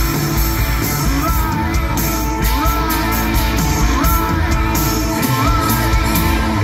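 Live rock band playing over a loud PA, with drums, guitar and a sung vocal. A rising sliding note repeats about every second and a half.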